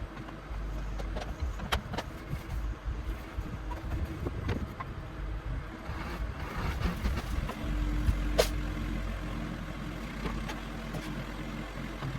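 John Deere backhoe's engine running steadily while clearing small trees, with several sharp cracks and knocks, the loudest about eight seconds in.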